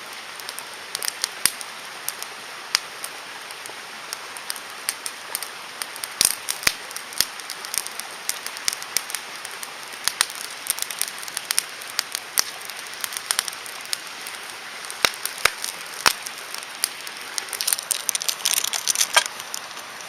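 Driftwood campfire crackling, with irregular sharp pops, some loud, over a steady hiss.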